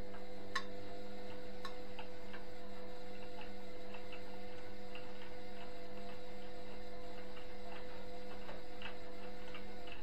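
Indesit front-loading washing machine running mid-cycle: a steady hum with light, irregular ticking about two or three times a second.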